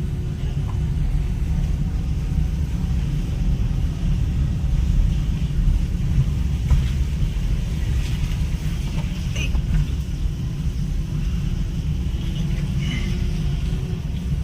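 Steady low rumble of a moving road vehicle, heard while riding in it, with a few faint short high sounds over it.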